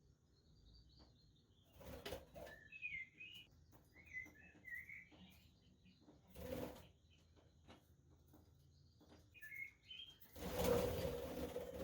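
Budgerigars chirping in short warbling phrases, broken by bursts of wing flapping; the loudest burst of flapping comes near the end and lasts about two seconds.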